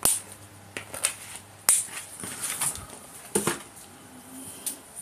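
Packaging being handled and cut to free a plastic toy sword. There are scattered sharp snips and clicks, about half a dozen, with plastic and cardboard rustling between them.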